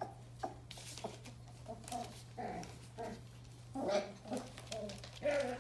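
Nearly four-week-old Border Collie puppies making short whines and yips, the louder ones in the second half, with newspaper rustling under their paws.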